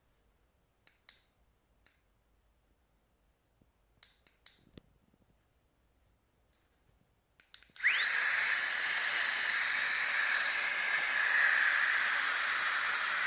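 A few faint clicks, then about eight seconds in a Flextailgear Tiny Pump 2 mini electric air pump starts up: its whine rises quickly in pitch and settles into a steady high-pitched whir.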